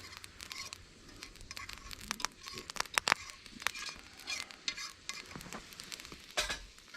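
A flour-and-fat roux sizzling in a cast-iron frying pan as a little milk is stirred in, with scattered sharp clicks and crackles.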